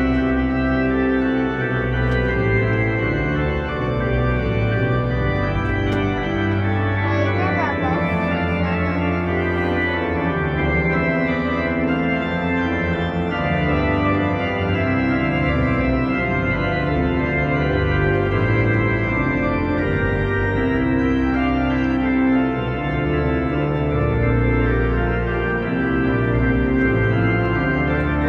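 Organ music with slow, sustained chords over deep bass notes, and a quick rising run of notes about seven seconds in.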